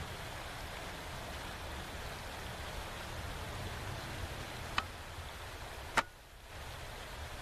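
A steady hiss, then a small click nearly five seconds in and, about a second later, a single sharp report: a CZ 455 .22 LR rifle firing.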